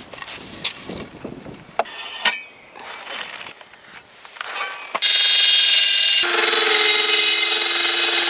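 Wooden boards knocked and scraped into place, then about five seconds in a cordless drill runs steadily for about three and a half seconds, driving a screw into the wooden floor.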